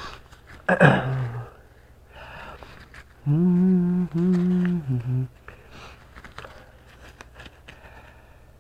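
A person humming a steady, flat note for about two seconds in the middle, broken briefly twice, after a short loud breathy sound about a second in. Faint clicks of handling run under it.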